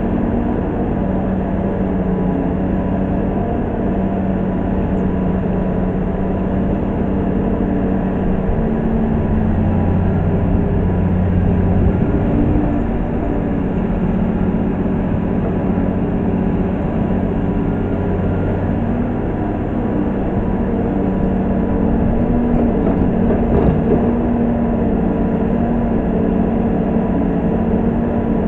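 Komatsu PC200-6 hydraulic excavator's diesel engine running steadily while the machine digs, swings and dumps soil into a dump truck. The engine note shifts and works harder for a few seconds about a third of the way in and again later on, as the hydraulics take load.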